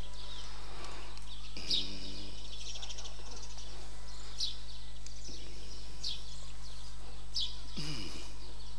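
A small bird chirping: short, high, falling chirps repeated about once a second, over a steady electrical hum.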